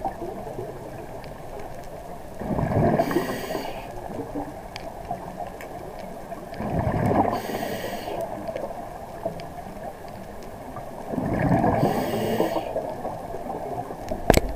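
A scuba diver's regulator breathing underwater: three breaths about four to five seconds apart, each a hiss of air and a gurgling rush of exhaled bubbles. A sharp click sounds just before the end.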